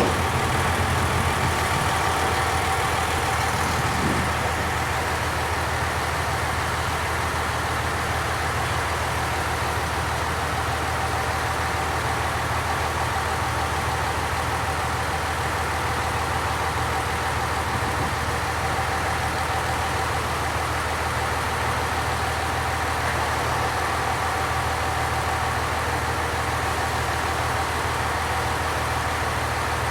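Diesel train engine idling with a steady hum.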